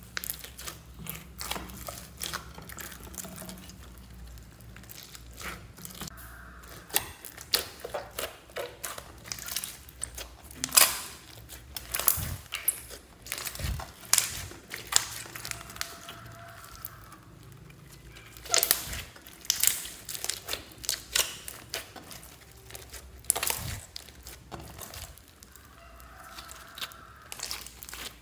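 A large mass of sticky slime mixed with small foam beads being kneaded, pressed and stretched by hand, giving irregular wet clicks and pops as it squishes and pulls apart.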